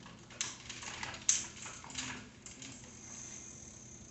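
A few sharp metallic clicks and taps from a hand tool working on the front end of a mountain bike, the loudest a little over a second in.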